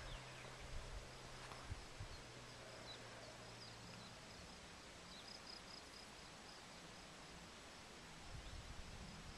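Faint outdoor ambience of a rural valley: distant small birds chirping in short repeated notes over a soft hiss, with a low hum for the first few seconds and some low rumble of wind or handling near the start and end.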